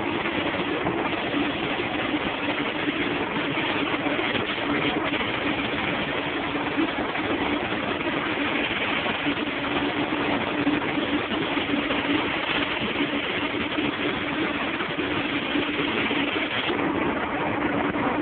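Paint spray gun hissing steadily with compressed air as it sprays clear coat onto a car panel, over a steady low hum.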